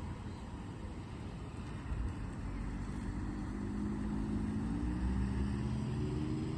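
A motor vehicle's engine running, its low hum growing louder from about two seconds in.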